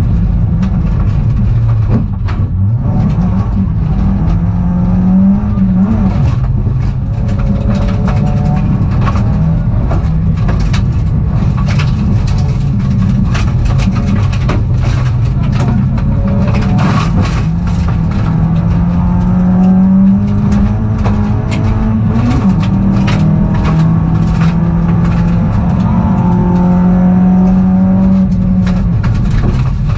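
Peugeot rally car's engine heard loud from inside the cabin, driven hard, its pitch climbing with the revs and dropping back at each gear change, over and over. Sharp knocks and ticks from the car on the rough stage come through now and then.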